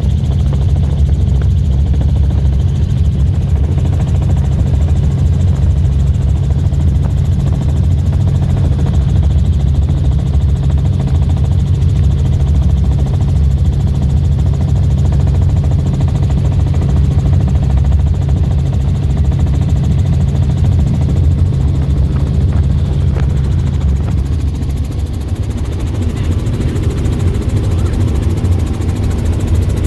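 Helicopter in flight, a loud, steady low drone from its engine and rotors that eases slightly about three-quarters of the way through.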